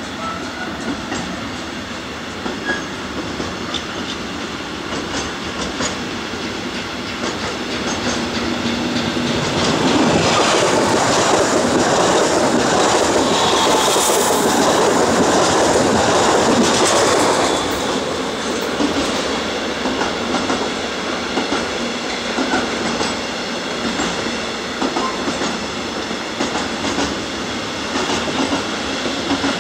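Long container freight train running past, its wagons' wheels clicking steadily over rail joints and points. About ten seconds in, a BLS electric multiple unit passes close by and drowns it for about seven seconds, with a brief sharp peak midway, before the freight's clicking rumble returns.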